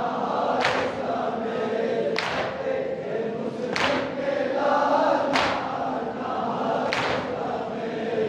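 Group of men chanting a noha, a mourning lament, in unison, keeping time with a sharp slap of hands beating on their chests together. The beats come about every second and a half, five in all.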